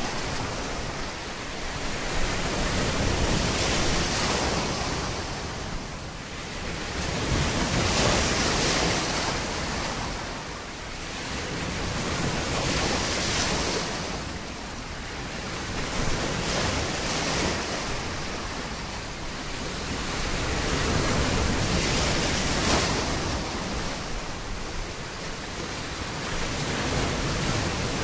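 Sea waves surging in and washing back, the surf noise swelling and fading every four to five seconds.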